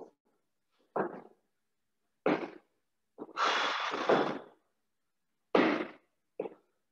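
A person doing burpees on a rubber gym floor: a run of sudden thumps from dropping to the floor and landing jumps, with heavy breathing. A longer rush of breath comes midway. The sound comes through a video-call microphone that cuts to silence between sounds.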